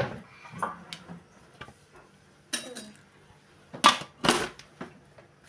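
Stainless-steel lid being fitted onto a metal ice-cream canister: a few light taps, then a sharp metallic clank about halfway through and two louder clanks a little after.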